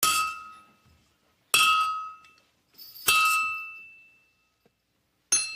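Blacksmith's hammer striking a horseshoe held in tongs on an anvil: four blows about a second and a half apart, each leaving a clear metallic ring that slowly dies away.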